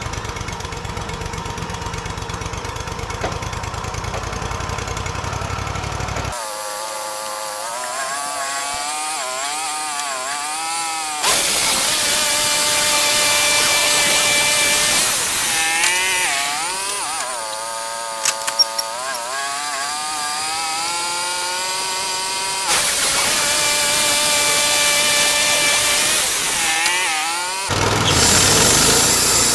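Portable bandsaw sawmill running and cutting through a log. The engine's pitch dips and recovers as the blade loads, and there are a few sharp clicks about two-thirds of the way through. The sound changes abruptly several times.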